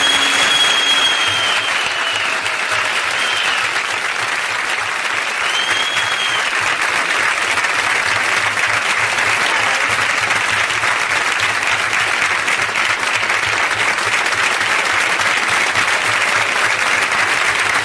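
Studio audience applauding steadily and at length.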